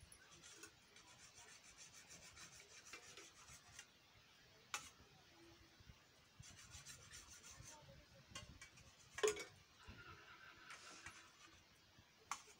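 Very quiet, faint rubbing and scraping with a few sharp clicks, the loudest about nine seconds in.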